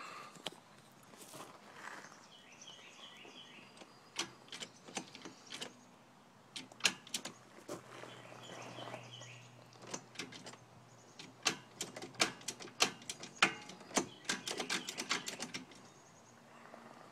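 Sharp mechanical clicks and clacks from the go-kart's shift linkage, built from snowblower parts, being worked by hand. They come in scattered runs and crowd together near the end before stopping. Birds chirp faintly in the background.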